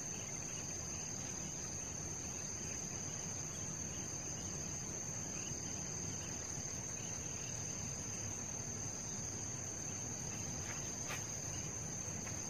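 Insects singing: a steady, unbroken high-pitched drone over a low outdoor background hum.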